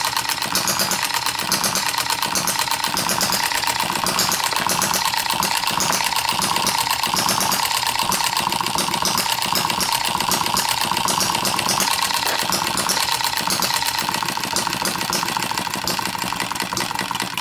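Little Brother air-cooled model hit-and-miss engine running steadily on its flywheels. Low firing pulses come at uneven intervals, about two a second, over a fast, steady mechanical clatter.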